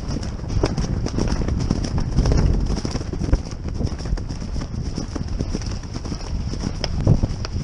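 Hoofbeats of a horse running across grass turf, heard from the saddle, as many dull knocks over a steady low rumble.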